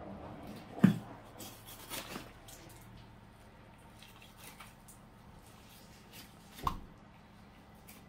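A hide being worked off a hanging beef carcass by hand and knife: soft cutting, pulling and squishing of skin from meat, broken by a few dull knocks, the loudest about a second in and another near the end.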